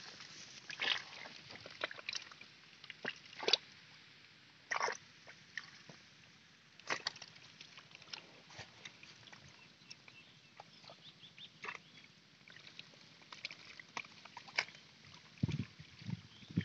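Hands splashing and sloshing through shallow muddy water, groping for fish by hand: irregular splashes at uneven intervals, with a few deeper thumps near the end.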